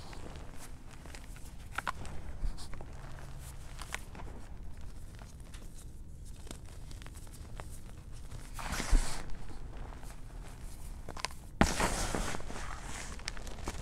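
Hands crushing and squeezing chunks of gym chalk and powder in a plastic bowl: soft crunching and powdery rustling, with louder crunches about nine seconds in and again near the end.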